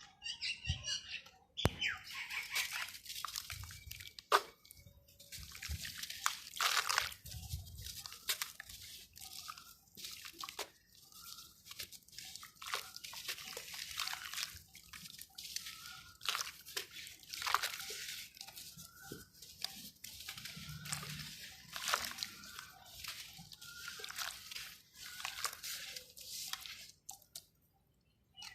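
Lumps of dry dirt and sand-cement crumbling and dissolving in water: irregular crackling and crunching with splashing and scattered sharp clicks, falling quiet briefly near the end.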